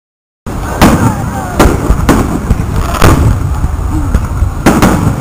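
Fireworks display: shells bursting with about half a dozen sharp bangs at uneven intervals over a steady low rumble, starting abruptly about half a second in.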